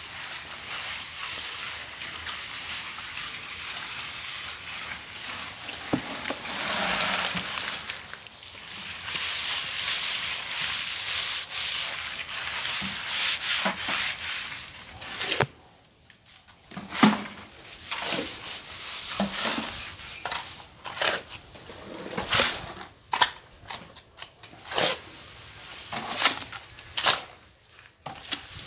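Hand trowel rubbing and scraping across wet concrete as a floor slab is smoothed, a continuous scraping hiss for about the first half. After that it gives way to separate short scrapes and knocks.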